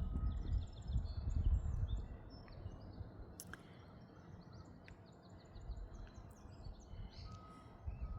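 Small birds chirping and singing in the background over a low, uneven rumble, louder in the first couple of seconds.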